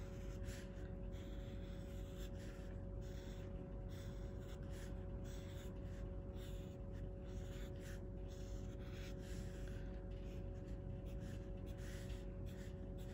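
Marker pen drawing on sketchbook paper: a run of short, irregular scratchy strokes as the propeller blades are outlined, over a faint steady hum.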